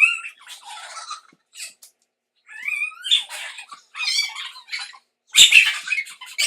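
Girls' high-pitched squeals and shrieks in short bursts. A sharp smack about five and a half seconds in is the loudest sound.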